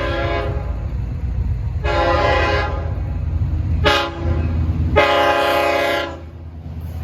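Long Island Rail Road diesel locomotive's air horn sounding four blasts, long, long, short, long: the standard warning for a grade crossing, with the train's low rumble beneath.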